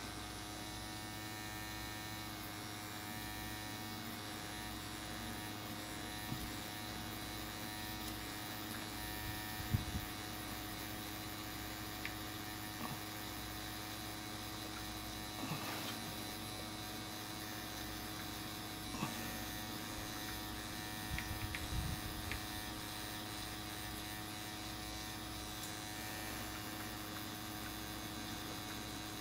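Pen-style tattoo machine running with a steady electric hum while shading skin, switched on right at the start, with a few faint knocks along the way.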